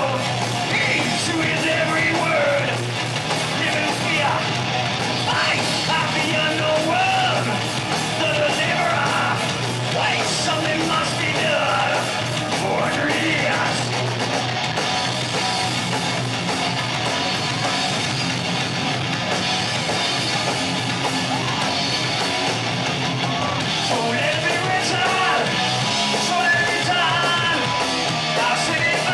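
Live heavy metal band playing: electric guitars, bass and drums with a singer's vocals over them, loud and continuous.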